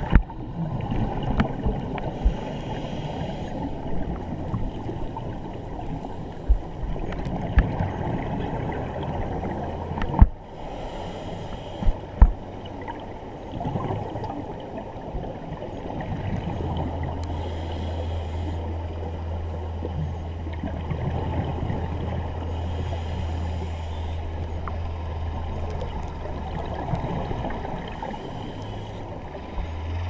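Underwater sound through a camera housing: a muffled steady rush of water, with the diver's scuba regulator exhalations bubbling out in brief hissy bursts every five or six seconds. A few sharp knocks stand out, and a low steady drone runs for about ten seconds in the second half.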